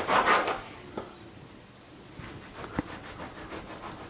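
Bread knife sawing through a crusty homemade loaf: one loud rasping stroke at the start, then a sharp knock about a second in and another near the end, with faint scratchy strokes between.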